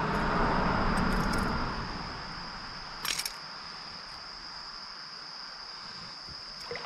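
Water splashing as a hooked smallmouth bass is held at the surface, louder for the first couple of seconds, with a brief clatter about three seconds in as the buzzbait is worked free. A steady, high-pitched insect chorus drones throughout.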